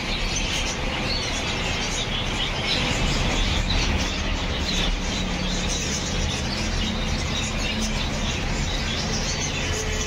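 Many small caged birds chirping and twittering together over a steady low rumble of street traffic and market noise.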